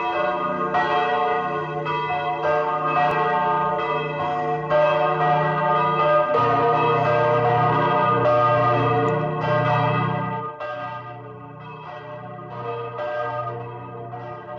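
Church bells ringing, several bells struck one after another and ringing on together; the ringing gets quieter about ten seconds in.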